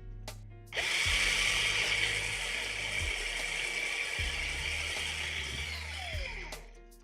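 A small electric drill starts suddenly, runs steadily for about six seconds, then winds down near the end, drilling out the rivet of a die-cast toy car. Background music plays under it.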